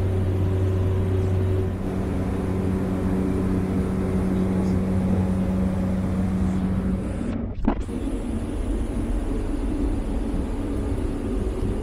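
Cessna Caravan cabin noise in flight: the steady drone of the Pratt & Whitney PT6A turboprop engine and propeller, with constant low hum tones. The low hum changes pitch about two seconds in, and the sound briefly drops out about two-thirds of the way through.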